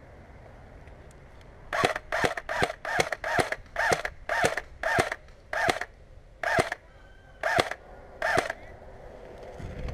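Airsoft rifle firing about a dozen single shots, sharp cracks two or three a second at first, then spacing out to about one a second.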